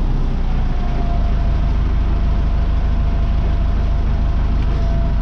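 Farm machinery running steadily: a loud, even low drone, with a thin steady whine that comes in about a second in.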